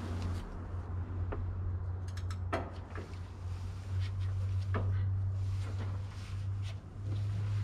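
Scattered sharp metallic clicks and knocks from hand tools and engine parts being handled on a Detroit Diesel 6-71 during piston and liner installation, over a steady low hum.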